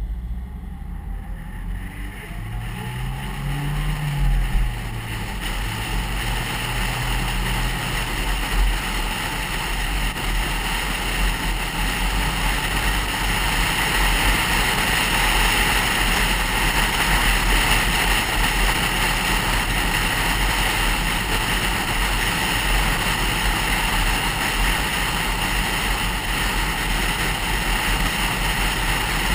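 A car heard from inside the cabin, pulling away and speeding up: the engine note climbs, drops briefly at a gear change, and climbs again. Then comes steady road and wind noise at cruising speed.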